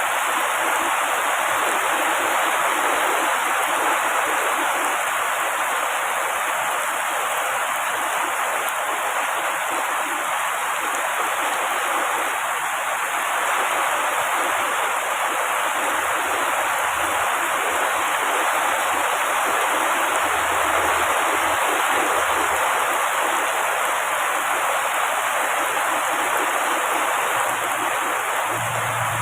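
Heavy rain falling steadily on tree foliage, an even, unbroken hiss.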